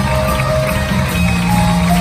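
Loud rock music from a theatre pit band, with long held notes over a steady bass.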